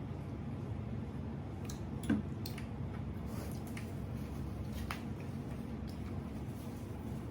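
Eating sounds: soft wet chewing with scattered light clicks of cutlery and dishes, one a little louder about two seconds in, over a steady low background hum.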